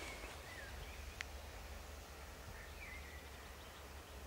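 Faint outdoor ambience with a few short songbird chirps over a steady low rumble, and one sharp click about a second in.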